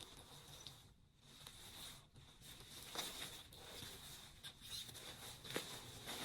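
Faint rustling of a down jacket being handled, with scattered light clicks and rustles that grow busier about halfway through.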